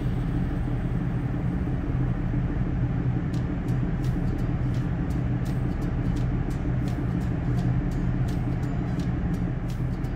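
A boat's engine running with a steady low drone. Faint, irregular clicks come in over it from about three seconds in.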